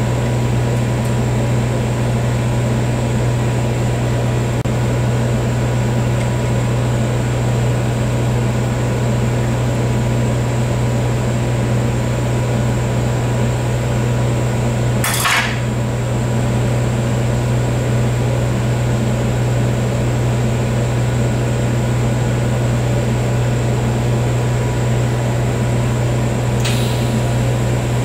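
A steady, loud low hum of running shop equipment, with a single brief knock about halfway through.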